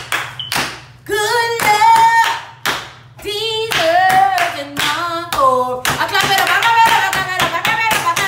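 A woman singing a melody a cappella, with hand claps that thicken into a steady clapped beat from about six seconds in.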